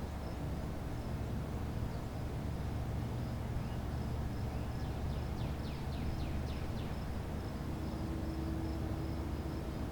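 Outdoor ambience: a steady low rumble with an insect trilling in even pulses high up, and a quick run of falling chirps about halfway through.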